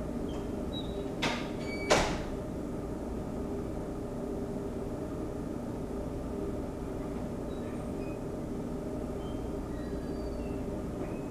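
A steady mechanical hum with two sharp clacks, about a second in and again half a second later.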